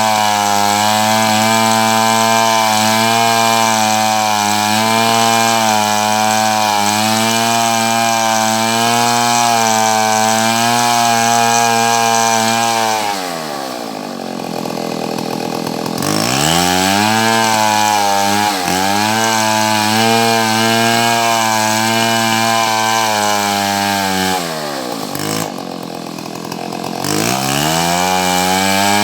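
Two-stroke chainsaw cutting wood at full throttle, its engine note wavering under the load of the cut. About halfway through and again near the end it drops back to idle for a couple of seconds, then revs up again and goes back into the cut.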